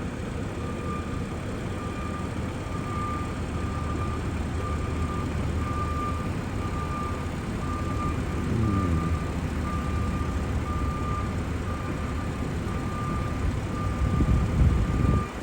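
Vehicle engine running as a steady low rumble, with a high electronic beep repeating about twice a second over it. The rumble swells briefly near the end.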